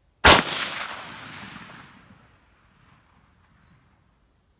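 A single rifle shot from a bolt-action hunting rifle fired off a bench rest, a sharp crack about a quarter second in followed by an echo that rolls away over about two seconds.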